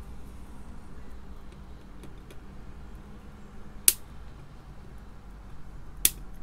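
Flush cutters snipping component leads on a circuit board: two sharp snips about two seconds apart, over a faint low hum.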